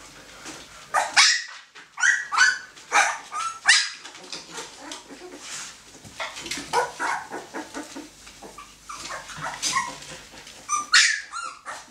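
Fifteen-day-old husky puppies yelping in a rapid string of short, high-pitched calls, many of them overlapping.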